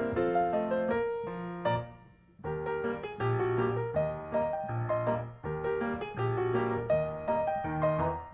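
Background piano music with repeating chords and a melody, pausing briefly about two seconds in.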